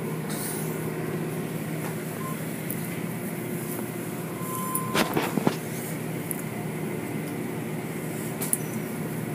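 Automatic car wash machinery running steadily: a low hum with water spray and cloth-strip brushes working over the cars, and a short cluster of knocks about five seconds in.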